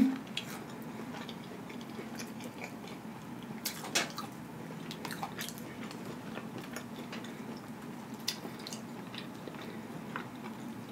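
A person chewing food with the mouth closed, with faint wet mouth clicks and one sharper click about four seconds in, over a faint steady hum.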